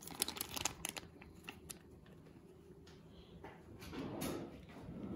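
Paper butter wrapper crinkling as softened butter is squeezed out of it into a bowl of flour: a few quick crackles in the first second, then faint handling rustle.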